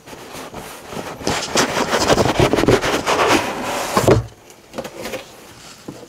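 Cardboard scraping and sliding against cardboard as a plain inner box and its printed outer box are slid apart, ending in a thump about four seconds in.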